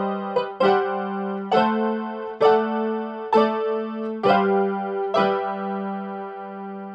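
Casio electronic keyboard playing a slow run of chords in a piano-like voice, a new chord struck about once a second over a held low note; the last chord, struck about five seconds in, is held and fades away.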